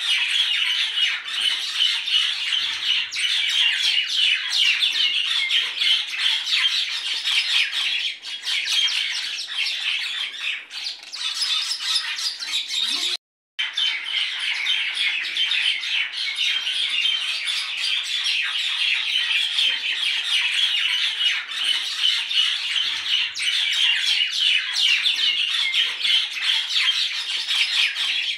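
Many small birds chirping and chattering continuously as a dense chorus, cutting out briefly about 13 seconds in.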